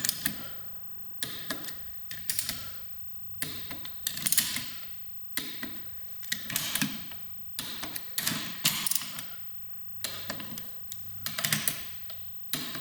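Ratcheting click-type torque wrench tightening engine main bearing cap bolts: short bursts of ratchet clicks, about one burst a second, as the bolts are brought up to torque one after another.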